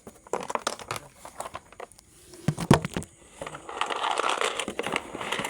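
Toy packaging being handled and opened: crinkling and crackling with many small clicks, a loud knock about two and a half seconds in, then denser rustling.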